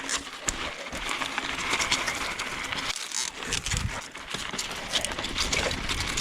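Mountain bike riding downhill over a dirt trail strewn with leaves: tyres crunching over leaves and dirt, with frequent small rattles and knocks from the bike over bumps.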